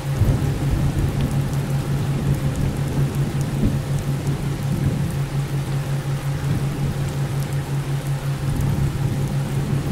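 Steady rain-like noise bed with a low hum pulsing about five times a second, the theta-wave beat, and a faint steady tone near 528 Hz. A deeper rumble joins right at the start and runs under the noise.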